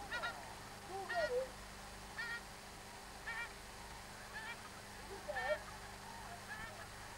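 Wild geese calling, a series of short honks about one a second, some with a lower falling note.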